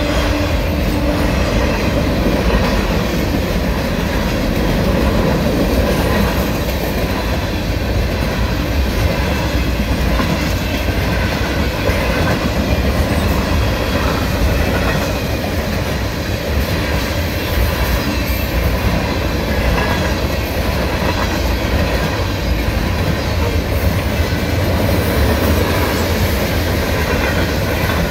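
Freight train cars rolling past at speed: a steady, loud rumble of steel wheels on rail, with clickety-clack as the wheels pass over the rail joints.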